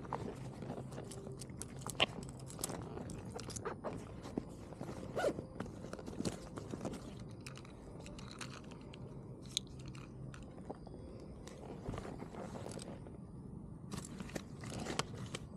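Close handling noise: irregular crunches, scrapes and clicks as hands move gear about in the grass right by the camera's microphone, with a low steady hum under the first ten seconds or so.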